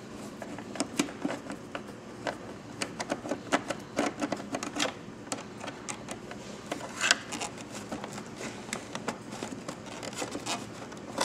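Quick, irregular light clicks and ticks of a ball-end 4 mm Allen wrench turning speaker mounting bolts out of a motorcycle's plastic fairing, with a few louder clicks among them.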